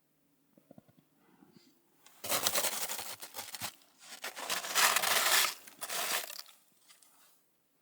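Dry crinkling and tearing rustle of something being crumpled or torn by hand, in two loud spells of about two seconds each.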